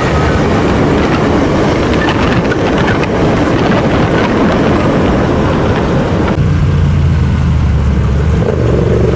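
Motorcycle engine running under a rough rush of noise; about six seconds in, the sound changes abruptly to a steady low engine drone.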